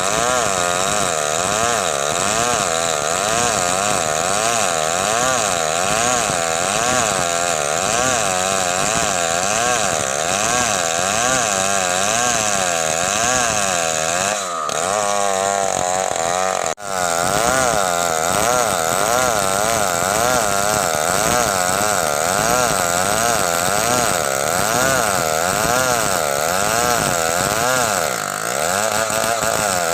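Stihl chainsaw engine running under load while cutting wood, its pitch rising and falling over and over. The sound drops out for an instant just past halfway.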